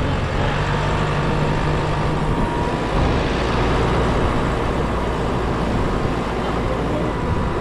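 Tractor engine running steadily, its note shifting lower about three seconds in.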